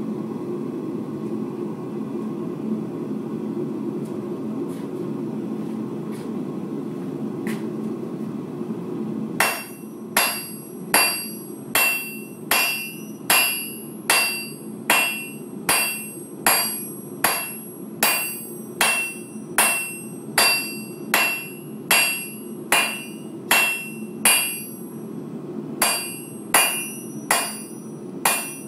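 Steady roar of a blacksmith's forge for about nine seconds, then a hand hammer striking hot steel on an anvil at an even pace, a little over one blow a second, each blow ringing. The blows pause briefly near the end, then resume.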